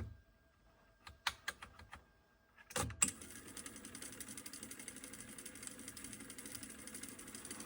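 Sony TC-K777 cassette deck's transport: a handful of sharp clicks from the controls and solenoids in the first two seconds, a louder clunk about three seconds in as the mechanism engages, then the tape transport running with a faint, steady, fast mechanical patter.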